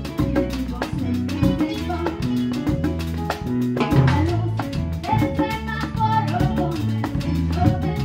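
Salsa music with singing, with a pair of hand-played congas keeping time along with it.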